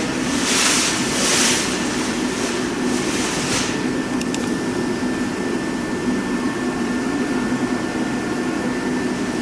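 Steady machine hum with a faint high whistle in it. In the first few seconds, a run of short hissing rushes comes about once a second.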